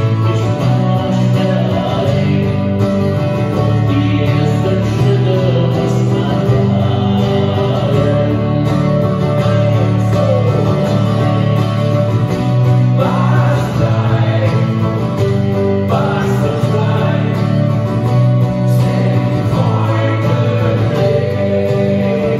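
Live acoustic rock song: two steel-string acoustic guitars playing together while a male voice sings lead.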